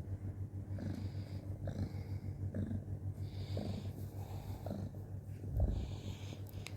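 A cat purring steadily, rising and falling about once a second, with a low thump about five and a half seconds in.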